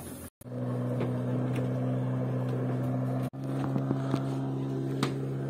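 An engine running at a steady speed with a constant low hum, broken off suddenly twice, once just after the start and once about halfway, with a few light clicks over it.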